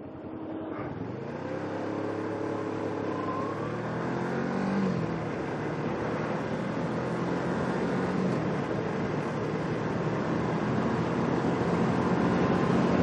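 Kawasaki Ninja 650R parallel-twin engine accelerating, its pitch climbing over the first few seconds. Wind and road noise then build steadily louder as speed rises.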